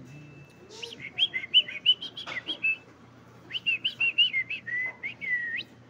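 Lovebird chirping in two quick runs of high, whistle-like notes. The second run ends on a longer held note that rises at its end.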